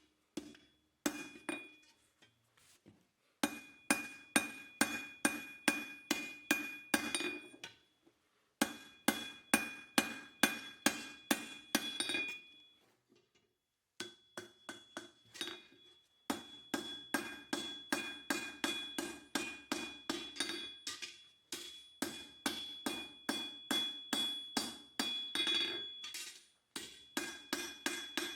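Forging hammer striking hot square steel bar on an anvil, the anvil ringing with each blow. The blows come in runs of about three to four a second, with short pauses between the runs.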